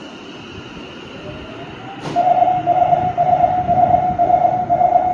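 Subway station departure warning: six loud electronic beeps at about two a second, starting with a click about two seconds in, over the low rumble of a Nagoya Municipal Subway Tsurumai Line train standing at the platform.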